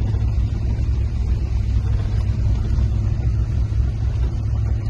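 Steady low rumble of a car's engine and tyres heard from inside the cabin while driving along a dirt road.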